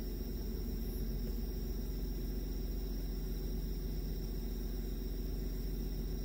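Car engine idling, a steady low hum heard from inside the cabin, with crickets trilling faintly.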